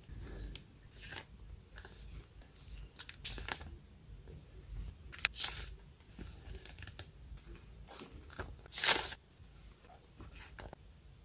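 Paper sticker sheets and a card-backed memo pad being handled: scattered crisp rustles and soft taps as sheets are picked up, shuffled and set down, with a longer, louder rustle about three-quarters of the way through.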